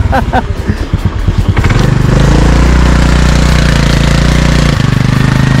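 Rental scooter's small engine running hard under load on a steep uphill climb. It is a loud, steady drone that swells in about two seconds in, and its pitch shifts slightly near the end.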